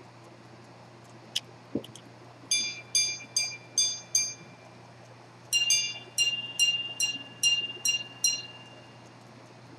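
Antique minute-repeater pocket watch striking the time with its hammers on its gongs. Two clicks as the repeater is set off, then five ringing strikes on the lower gong for the hours, a short pause, and a quicker run of about ten strikes with a higher tone for the quarters and minutes.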